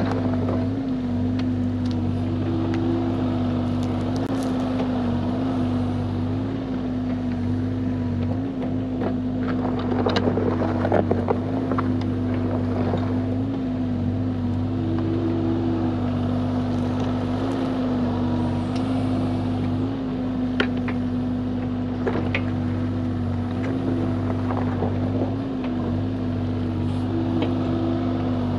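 Bobcat E35 mini excavator's diesel engine running steadily at working revs, its pitch dipping briefly now and then, with scattered knocks and clanks from the bucket working dirt and stone.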